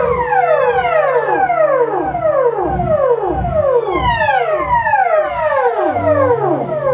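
Theremin playing rapid, overlapping downward swoops in pitch, a new one every half second or so, over low held tones, in an improvised electroacoustic piece.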